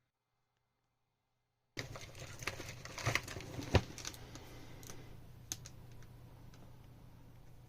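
A run of small sharp clicks and taps over a steady low hum and hiss, cutting in abruptly about two seconds in after dead silence; the clicks thin out and the hiss slowly fades.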